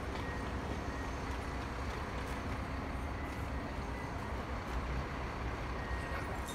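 Steady low rumble of road vehicles, with no sudden events.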